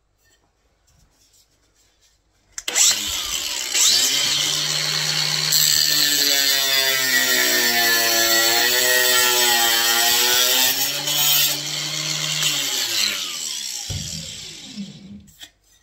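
Angle grinder cutting a wall tile. The motor starts about two and a half seconds in, its pitch sags while the blade cuts through the tile and then recovers. Near the end it is switched off and winds down.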